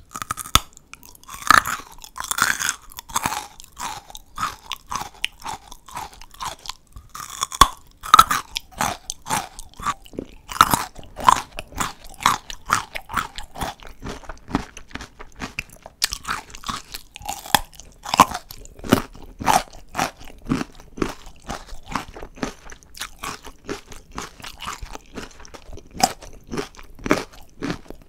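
Raw carrot bitten and chewed close to the microphone: a few loud crisp crunching bites, with quick crunchy chewing in between.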